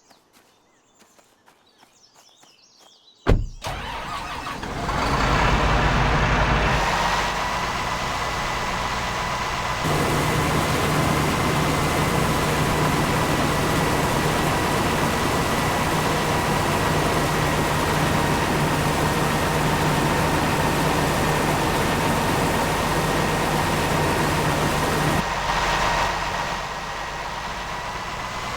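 A sharp click about three seconds in, then a farm machine's engine starts and runs steadily with a high whine. The engine note goes up about ten seconds in and drops back near the end.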